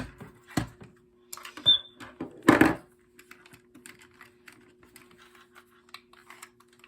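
Plastic clicks and knocks from a Kidde carbon monoxide alarm being handled as its battery is taken out: four sharp clicks in the first three seconds, then lighter rattling and ticking. There is a brief high beep a little under two seconds in.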